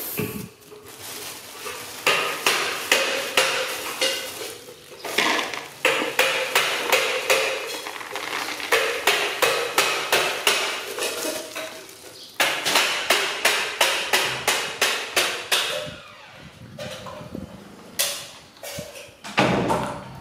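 Puppies crunching dry kibble from a plastic bowl in quick runs of sharp crunches, about three or four a second. Kibble rattles into the bowl and a plastic bag crinkles while it is poured, with a couple of knocks near the end.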